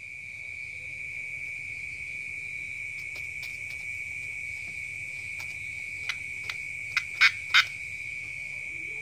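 Steady, high-pitched chirring of night insects, typical of crickets, with a few short sharp chirps or clicks between about six and eight seconds in.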